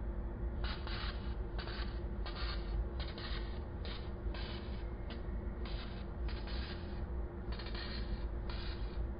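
Fiber laser marking machine running: a steady fan hum with repeated short buzzing bursts, each lasting about a third to half a second, as the laser marks the keyboard.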